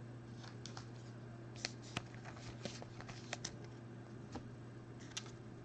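Panini Mosaic basketball trading cards handled and slid one behind another, making a scatter of faint soft clicks and flicks over a low steady hum.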